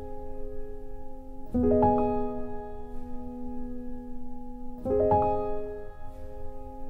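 Slow solo piano music: sustained chords struck about every three seconds, twice in this stretch, each ringing on and fading.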